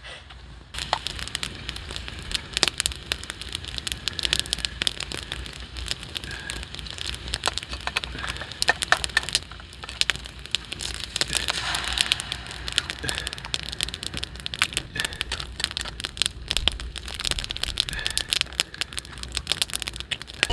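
Food sizzling in a hot camp pot with a wood campfire crackling beside it: a steady hiss full of sharp pops and crackles that starts suddenly about a second in.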